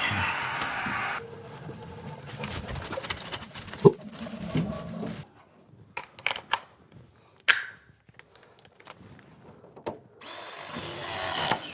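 A cordless power tool motor running in short runs, with metallic clicks and clanks of tool work between them.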